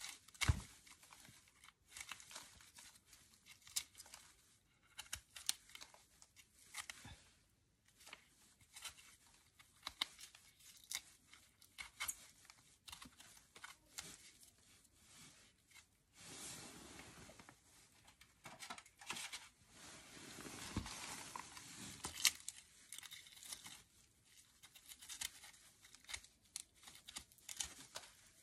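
A knife cutting and scraping dry roots off an amaryllis bulb: a run of short crackles and scratches, with a longer rasping stretch about two-thirds of the way through.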